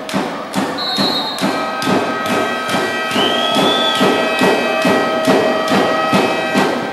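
Supporters' drum in the stands beating a steady rhythm of about two beats a second, with long held notes over it and a short rising-and-falling note about halfway through.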